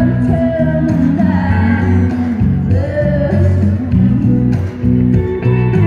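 Recorded song with a singing voice over a full band accompaniment, played over a hall's sound system for line dancing.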